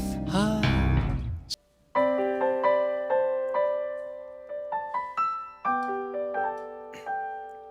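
Band music with drums cuts off about a second and a half in. After a brief silence, a solo piano plays slow, sustained chords and single notes: the opening of a ballad.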